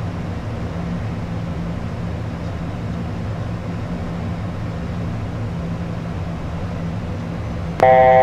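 Steady cockpit noise of a Beechcraft Premier 1A business jet on final approach: an even hiss with a low hum under it. Near the end a loud electronic cockpit alert tone sounds, several pitches together, starting and stopping abruptly after about a second.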